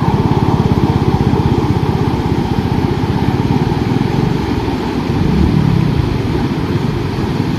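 Floodwater rushing over a submerged road, a loud, steady low rumble with a fast flutter in it.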